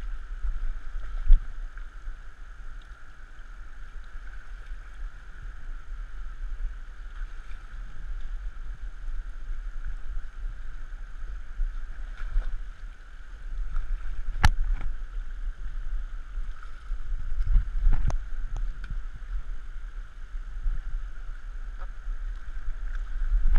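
Shallow river water running steadily over rocks around a wading angler's legs, with a couple of sharp knocks about two-thirds of the way in.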